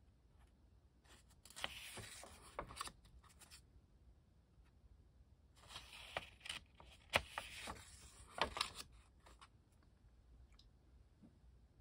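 Pages of a small 4x6 sketchbook turned by hand: crisp paper rustling and crackling with sharp ticks. It comes twice, about a second in and again from about six to nine seconds in.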